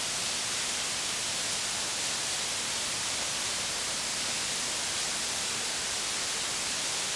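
Steady, even hiss of recording noise with no distinct event, the microphone picking up nothing else in a quiet pause.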